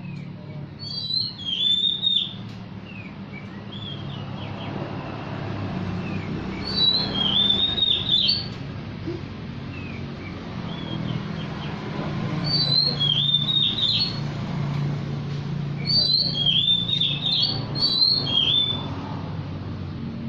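Oriental magpie-robin song: loud, quick whistled phrases in bursts about every five or six seconds, with quieter calls in between, as a captive bird answers song played from a phone. A steady low hum runs underneath.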